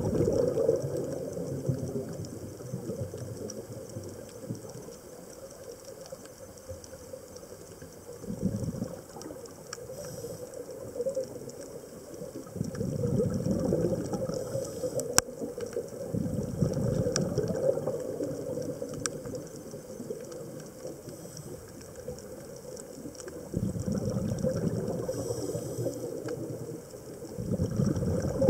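Underwater sound of a scuba diver's exhaled bubbles, rising in swells every few seconds with each breath, with a few sharp clicks scattered through the middle.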